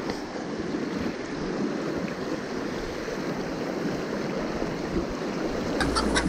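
River water rushing steadily over a rocky rapid.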